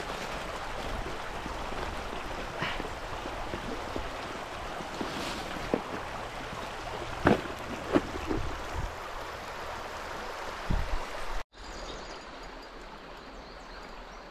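River water flowing steadily, with a few short knocks in the middle. The sound drops out abruptly for an instant about three-quarters of the way through, then the water comes back quieter.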